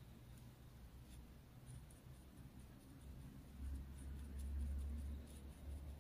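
Faint soft scratches and dabs of an ink-loaded Chinese brush on paper, a string of light short strokes. A low rumble swells about halfway through and fades near the end.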